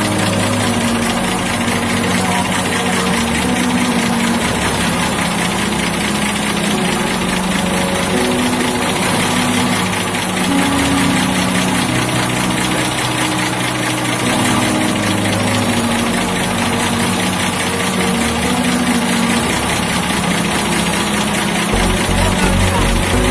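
Fishing boat's engine running steadily with a constant hum and noise. A regular low pulsing comes in near the end.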